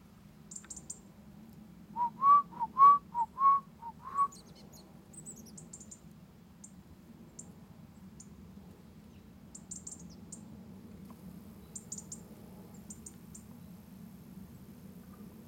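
A quick run of about eight loud, low whistled notes, alternating between two close pitches, over about two seconds. Thin, very high tit calls sound faintly here and there throughout.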